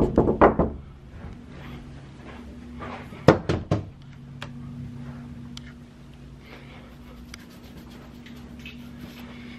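Three quick knocks or thuds about three seconds in, over a steady low household hum.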